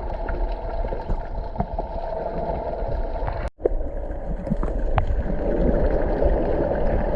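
Muffled rushing and gurgling of creek water, a steady low noise, with a brief dropout about halfway through.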